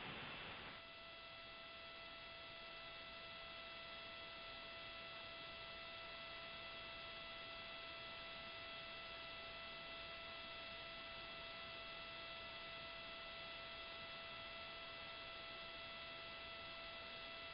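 Faint steady hum of several fixed tones over a low hiss: the background noise of the launch-commentary audio line, with no rocket sound.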